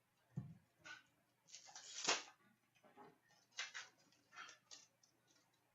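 Hockey card packs and cards being handled: a series of short rustles and clicks, the loudest about two seconds in.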